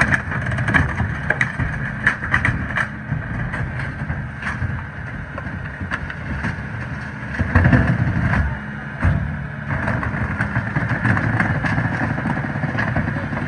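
Loadmaster rear-loader garbage truck running, its engine going steadily while the hydraulic packer blade cycles through the hopper. There are repeated knocks and clatter of bulk items, most of them in the first few seconds, and a louder surge a little past the middle.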